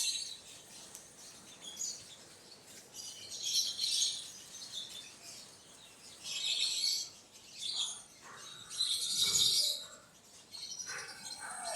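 Birds chirping in short bursts of high calls, about one every two or three seconds.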